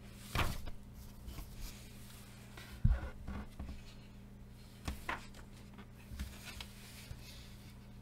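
Pages of a paperback colouring book being turned by hand: several short paper swishes and rustles, with a sharp thump about three seconds in, the loudest sound.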